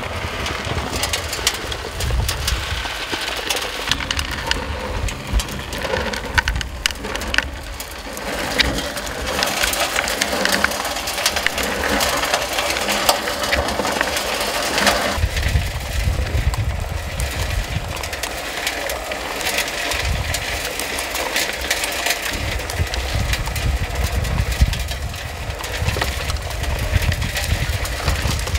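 Scale model gold trommel at work: soil clods and small stones crunching and rattling as they tumble through its rotating screen drum, with many small clicks over an uneven low rumble.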